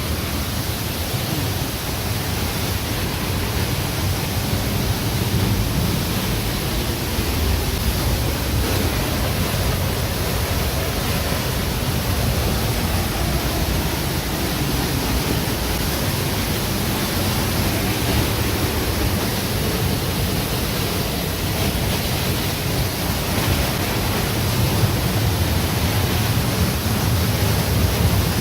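Steady, loud rush of a waterfall swollen by rain, pouring close by.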